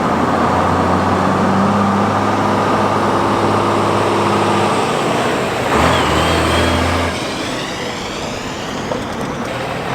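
A truck engine running steadily. Its note drops about six seconds in, and it is quieter from about seven seconds.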